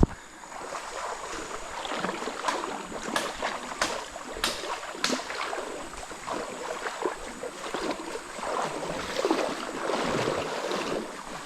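River water splashing and sloshing unevenly, with sharp clicks here and there.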